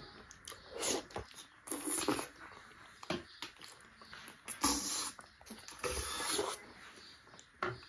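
Wet eating sounds of soft, juicy ripe jackfruit bulbs: lips smacking and sucking on the fruit in several short bursts with quieter gaps between.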